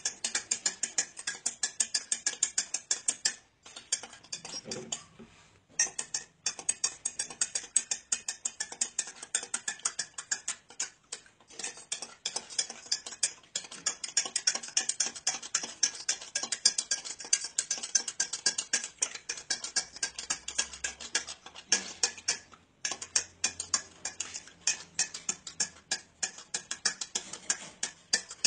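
A utensil stirring liquid in a drinking glass, clinking against the glass over and over, about three or four clinks a second, stopping briefly a few times. It is soap being mixed into the water to dissolve it.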